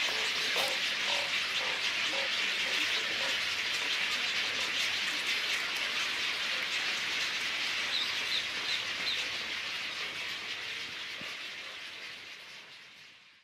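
Dense, unbroken din of a waterbird nesting colony of egrets and spoonbills: many overlapping calls blending into a steady hiss-like chorus, with a few lower croaks early on and a short run of high chirps about two-thirds through. It fades out steadily over the last few seconds.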